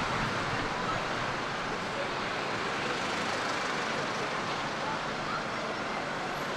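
Steady rushing noise of wind and road traffic.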